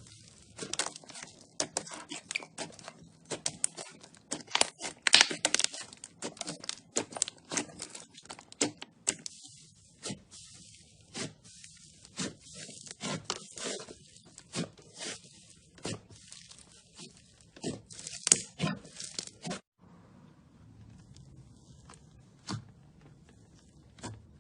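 Slime being squeezed and stretched by hand, making dense, irregular crackling and popping clicks. About twenty seconds in the crackling stops abruptly, and only a few scattered pops follow.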